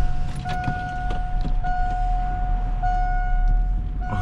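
Electronic warning beeper sounding long, steady beeps about once every 1.2 seconds, over the low rumble of an idling engine, with a few light clicks.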